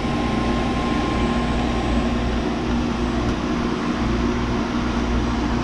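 Fieldpiece 5 CFM vacuum pump running with a steady hum, evacuating a beer keg cooler's refrigeration system after a compressor and filter drier replacement.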